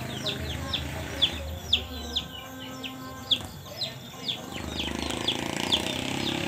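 A chick peeping: short, high chirps that fall in pitch, repeated about twice a second, over a low steady background rumble.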